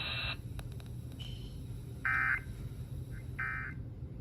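Emergency Alert System end-of-message data bursts: short buzzy electronic bleats, repeated about a second and a half apart. A steady radio tone cuts off shortly after the start, with a few clicks before the bursts.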